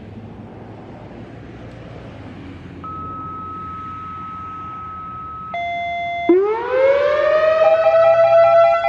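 Whelen WPS-4004 electronic outdoor warning siren starting its steady Alert tone: two steady electronic tones come first, then about six seconds in the sound sweeps up in pitch and settles into a loud, steady tone.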